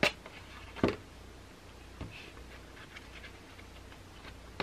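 A few short clicks and knocks: a sharp one at the start, a louder knock just under a second in, a smaller one about two seconds in, then faint scattered ticks.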